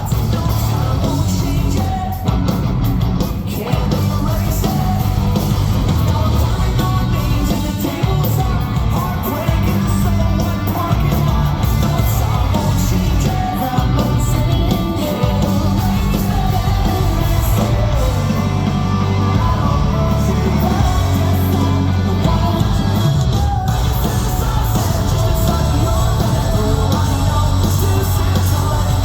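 Live post-hardcore rock band playing at full volume: distorted electric guitars, bass and drums, with a singer singing and yelling over them, the sound filling a large room.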